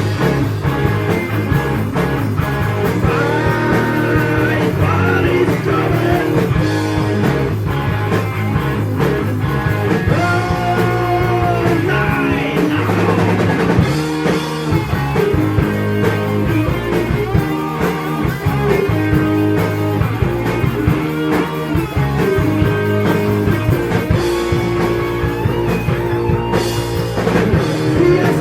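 Heavy metal band playing: distorted electric guitars, bass and a drum kit, loud and continuous.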